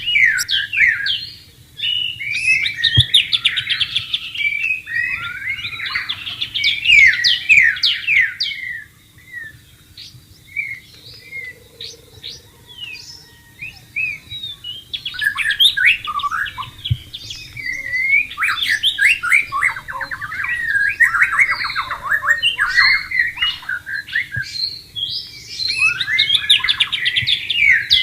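White-rumped shama (murai batu) singing: long bouts of rapid, varied whistled phrases, easing to scattered notes for a few seconds in the middle before the full song resumes.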